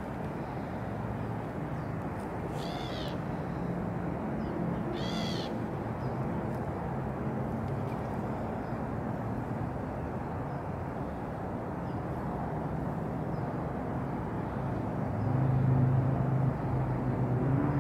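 A cat gives two short, high meows about two and a half seconds apart, each rising and falling in pitch. Under them a steady low rumble runs throughout and grows louder near the end.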